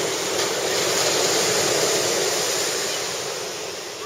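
Ocean surf: a wave breaking and washing up the beach, swelling and then fading away.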